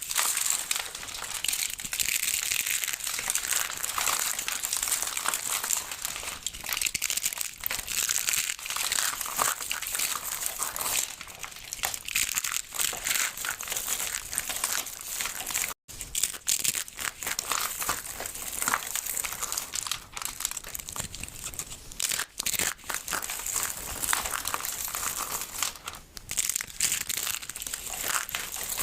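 Soap crackling and crunching as it is cut and crushed by hand: a dense run of small crisp crackles with brief pauses, broken by a sudden cut about 16 seconds in.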